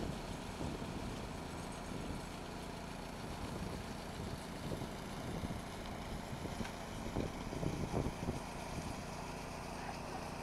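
Small gasoline engine of a concrete power trowel running steadily, with a few short louder knocks about seven to eight seconds in.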